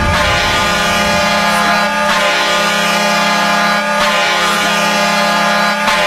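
Hockey arena goal horn blowing continuously: a loud, steady, low air-horn blast with many overtones. Faint falling sweeps in pitch recur about every two seconds over it.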